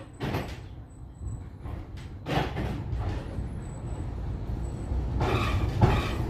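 Interior running noise of a 1960 Duewag GT8 tram: a steady low rumble with a couple of sharp knocks, growing louder from about five seconds in.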